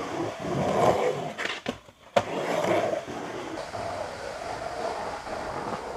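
Skateboard wheels rolling over rough concrete. About two seconds in the rolling drops out briefly, then a single sharp clack of the board hitting the ground, and the rolling carries on, steadier and quieter.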